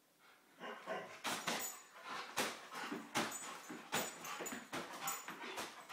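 Labrador retriever leaping and snapping at a foil helium balloon: a fast, irregular run of clicks and knocks from its paws and claws on the wooden floor and its jaws batting the balloon.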